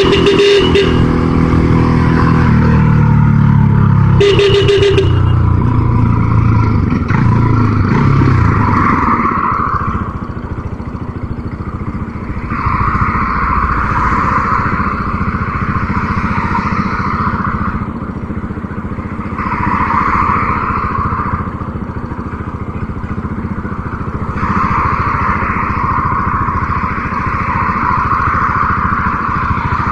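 Motorcycle engine heard from the rider's seat in traffic, its pitch falling as the bike slows over the first several seconds, with two brief sharp sounds near the start and about four seconds in. It then runs on with a steady low rumble and a rushing noise that swells and fades several times.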